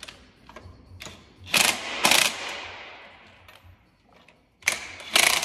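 Hand ratchet wrench clicking in four short bursts as the lug nuts on a Jeep Wrangler's front wheel are tightened.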